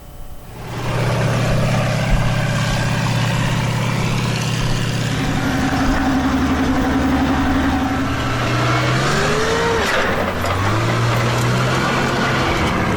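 A large engine starting up loudly and running, its pitch shifting as it revs, with a glide up and back near the ten-second mark.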